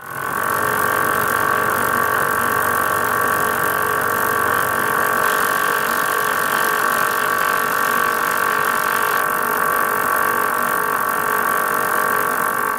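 Self-adhesive label printing machine running steadily, a constant whine over even mechanical noise as the label web passes over its steel rollers.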